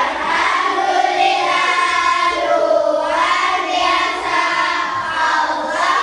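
A group of children singing together in unison, loud and steady.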